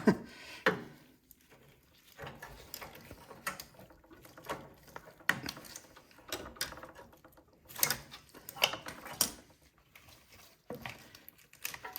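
Scattered light clicks and knocks of hand work on a snowblower carburetor, as fuel and primer hoses and small parts are fitted back on.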